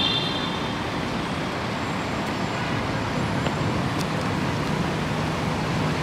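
Steady city street traffic noise, with a low engine hum coming in during the second half.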